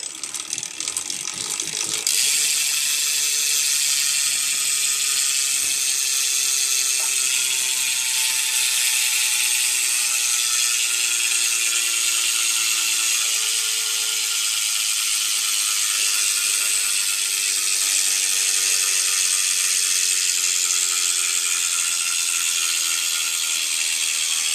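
Rear freewheel hub of a Mirraco Bronson BMX bike, pedalled by hand on the upturned bike, then buzzing loudly as a fast, continuous ratchet whir while the wheel coasts. The buzz slowly drops in pitch as the wheel slows.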